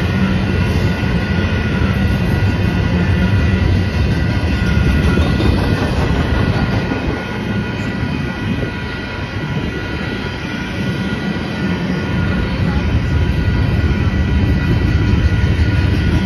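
Double-stack intermodal container train rolling past: a steady rumble and rattle of the well cars' wheels on the rails, easing slightly in the middle, with a few faint steady high tones above it.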